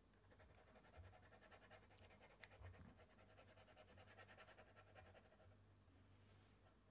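Near silence: room tone with a faint low hum and a faint, fast, even pulsing.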